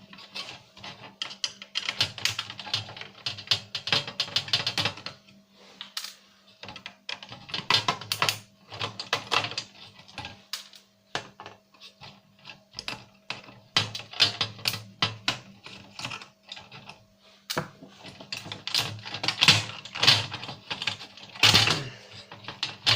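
Clicking, tapping and rattling of small plastic and metal parts as a DVD player's circuit board is worked loose and disconnected, in clusters of short clicks with a few brief pauses.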